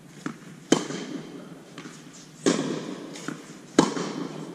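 Tennis balls struck by rackets strung with Signum Pro Firestorm strings during a rally: three sharp, loud pops about a second and a half apart, each echoing in a large indoor hall, with softer ball bounces between.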